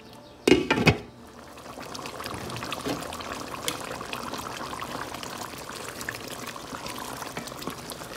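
Beef curry simmering in a pot of liquid: a steady bubbling with small pops as the water cooks down. A brief loud clatter comes about half a second in.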